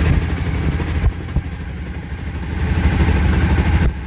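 Motorcycle engine idling after being jump-started from another bike's battery, running steadily; its level dips about a second in and rises again near three seconds.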